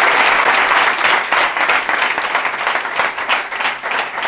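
A small audience clapping their hands in applause, dense at first and breaking up about a second in into scattered separate claps that die away.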